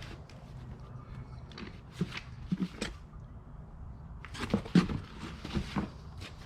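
Rummaging through a box of papers and odds and ends: scattered knocks and handling rustles, with a busier, louder run of them about four to five seconds in.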